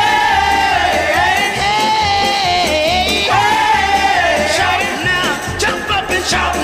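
Hockey goal song: recorded music with a sung melody over a steady bass beat, with sharp drum or clap hits coming in about five seconds in.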